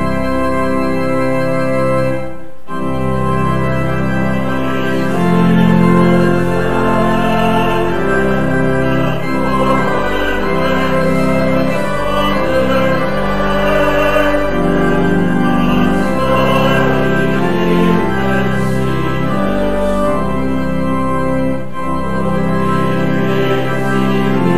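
Church organ playing a hymn tune in held chords that change every second or two, with a brief break about two and a half seconds in.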